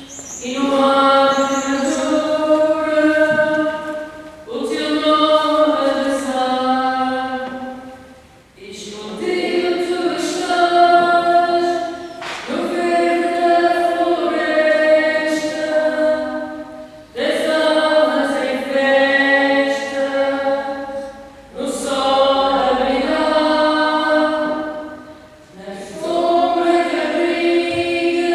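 A choir singing in long held phrases of about four seconds each, with short breaks between them.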